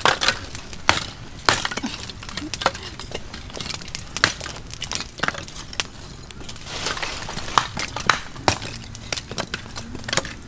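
Lumps of charcoal clinking and snapping as they are picked up and laid on a wood fire, with the fire crackling: irregular sharp clicks, a few a second.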